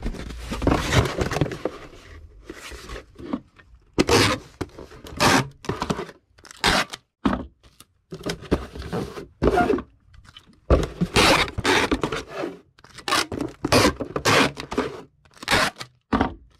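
Small bubble wrap rustling and a cardboard shipping box scraping as an item is wrapped and packed, in irregular bursts with short pauses.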